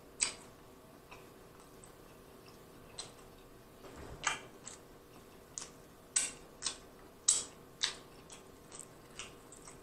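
Close-up eating sounds: short, sharp, wet clicks and smacks from a mouth and from sticky, sauce-covered fingers working at a rack of barbecue ribs. They come sparsely at first and more often in the second half, as the ribs are pulled apart by hand.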